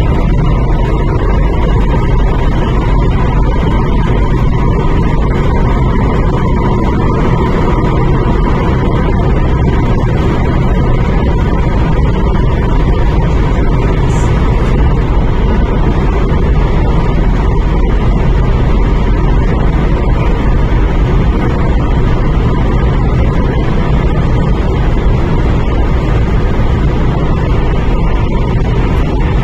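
Interior running noise of an MTR Tuen Ma line IKK-Train at steady speed: a continuous low rumble of wheels and track with a faint steady whine.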